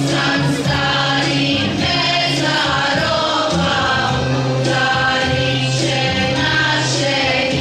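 Women's choir singing a Bosnian ilahija (Islamic devotional song) in several voices, over low held notes underneath.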